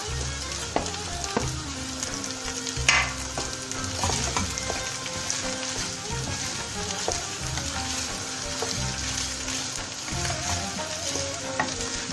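Mashed potato frying in oil with onion and tomato paste in a pot, sizzling while it is stirred, with the spoon scraping and knocking against the pot now and then, loudest about three seconds in.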